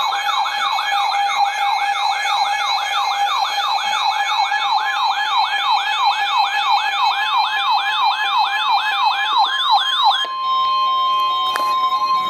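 Emergency alert alarm: a rising siren-like sweep repeated rapidly, about three times a second, for some ten seconds. It then switches abruptly to one steady high tone, the attention tone played ahead of a weather warning broadcast.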